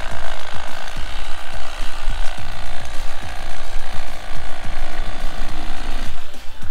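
Electric fillet knife buzzing as its reciprocating blades cut through a salmon, dying down near the end.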